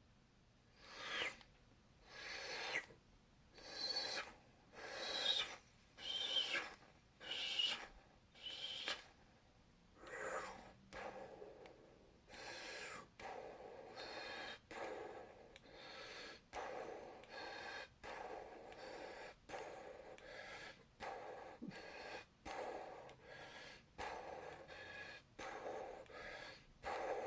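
A person imitating laser blasts with his mouth: a string of breathy zapping noises, about one a second with gliding pitch at first, then quicker and shorter from about ten seconds in.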